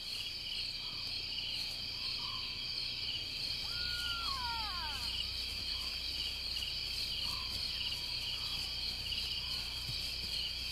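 Night insect chorus: a steady, high, pulsing trill throughout. A single falling call cuts across it about four seconds in, and a few faint short calls sound lower down.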